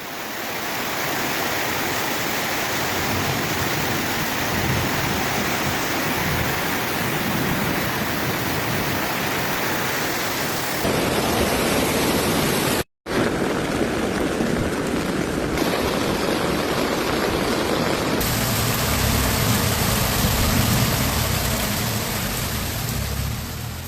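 Heavy rainstorm: a steady, dense noise of downpour and running floodwater. Its character changes abruptly several times, and it drops out briefly about halfway.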